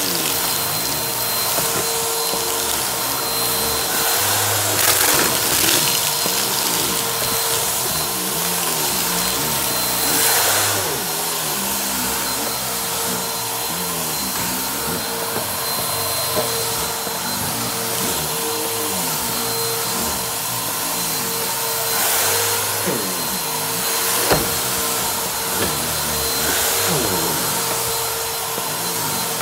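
Upright vacuum cleaner running steadily with a constant whine, pushed back and forth over a rug, with a couple of sharp clicks in the second half.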